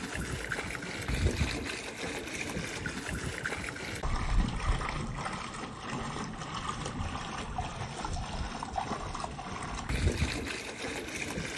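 Rinse water sloshing inside a Mercedes W126 fuel tank as it is rocked and tipped, pouring and trickling out as the tank is drained.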